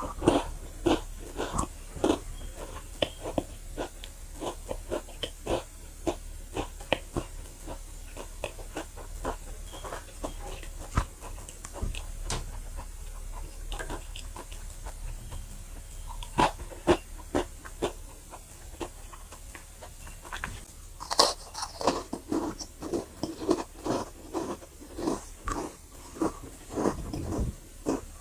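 Chocolate chip cookies being bitten and crunched while chewing, close to the microphone: a steady run of irregular crisp crackles that gets denser and louder about three-quarters of the way through.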